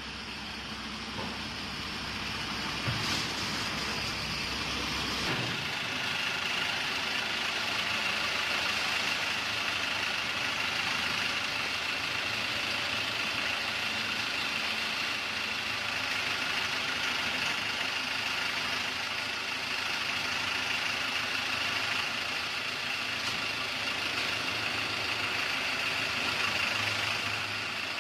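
Shangchai 12V135BZLD1 V12 diesel engine of a 540 kW generator set running steadily, with a constant high whine over the engine noise. It swells over the first few seconds, with a brief click about three seconds in.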